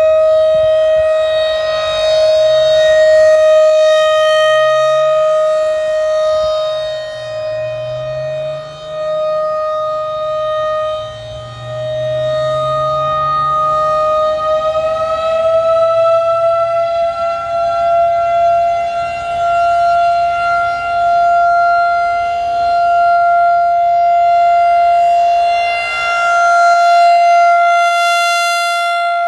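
Federal Signal 2001-DC electromechanical outdoor warning siren sounding a steady alert tone. About fourteen seconds in its pitch suddenly rises a little and holds at the higher note. Its loudness swells and fades as the rotating siren sweeps around.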